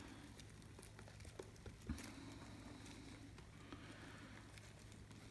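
Near silence: a faint steady room hum, with a few soft ticks and rustles from hands pressing modelling compound onto a foil-filled form.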